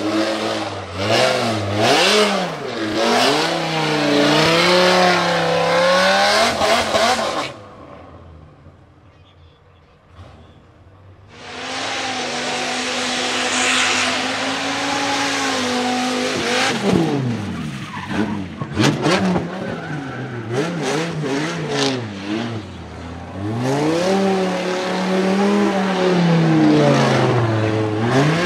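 Twin-turbocharged, nitrous-fed 8.3-litre V10 of a Dodge Viper SRT10 revving hard through drifts and donuts, the engine pitch rising and falling with the tyres squealing as they spin. The sound drops away for a few seconds about a third of the way in, then comes back at a steady held pitch before the revving picks up again.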